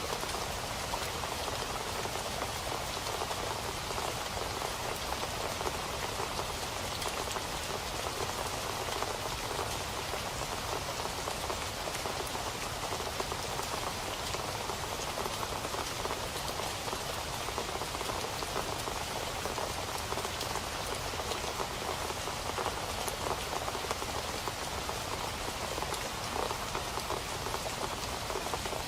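Steady rain falling and pattering on a surface, a dense even hiss of many drops with no change in strength.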